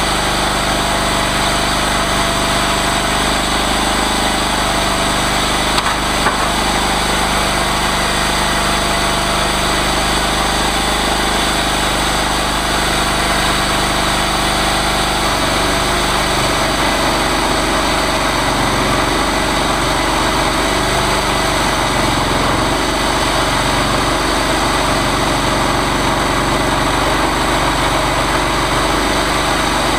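Engine of a chainsaw mill running steadily, with two sharp clicks about six seconds in.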